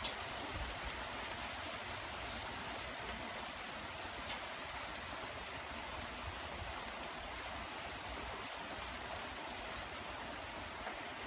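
Light, steady rain falling: an even hiss, with an occasional faint tick of a single drop.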